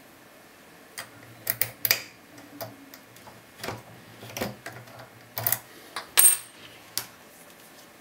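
Metal key clicking and clinking against the brass cylinder of a Vachette V136 rim lock: about fifteen sharp, irregular clicks over some six seconds, the loudest a ringing clink a little after six seconds in.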